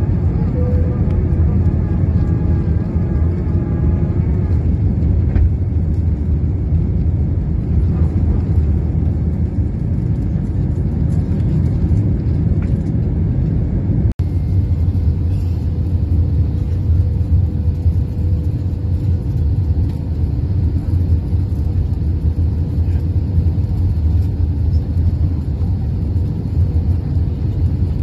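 Cabin noise inside an Airbus A320-232 with IAE V2500 turbofans: a steady low engine and airflow rumble during the climb after takeoff. The sound cuts out for an instant about halfway through, then the same steady drone continues on the approach to landing.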